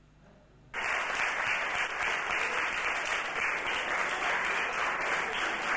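Audience applauding, a dense, steady clapping that starts abruptly less than a second in.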